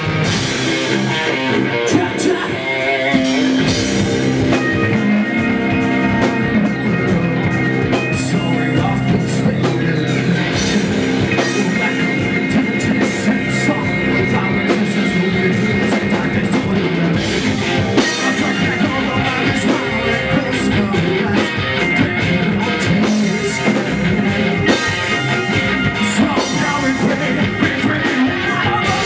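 Rock band playing live: guitars and a drum kit, with a singer at times.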